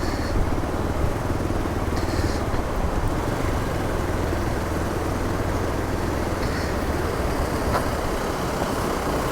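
Hero Xpulse 200 4V's single-cylinder four-valve engine running steadily while being ridden over a rough, muddy track.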